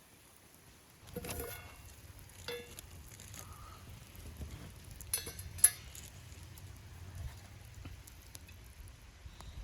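Cooking utensils clinking against metal cookware several times, with a sharp ringing clink about five and a half seconds in the loudest, over a low steady rumble.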